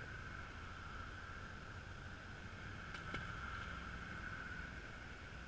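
A released walleye splashing briefly into lake water about three seconds in, over a steady faint hiss.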